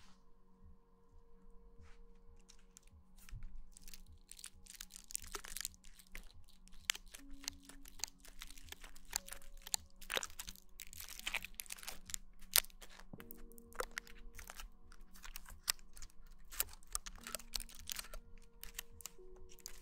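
Close-miked crackling and crinkling noises, dense irregular clicks that build up a few seconds in, over soft background music of held tones.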